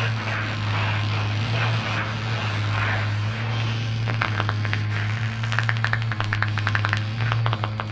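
Live electronic improvisation: a steady low drone under a hissing, noisy texture. From about halfway it is joined by a busy flurry of short clicks and crackles.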